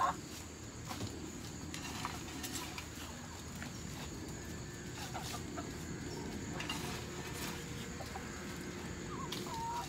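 Hens clucking softly and intermittently while a shovel digs and scrapes into a pile of half-finished compost, a few scattered scrapes over a steady low background hum.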